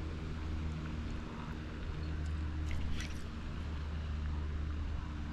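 A motor's steady low drone with an even pitch, with a few faint, light clicks about two to three seconds in.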